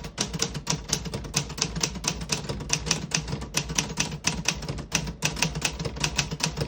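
1957 Remington Quiet-Riter portable manual typewriter being typed on: a quick, even run of keystrokes, about five or six a second, with the typebars striking the platen.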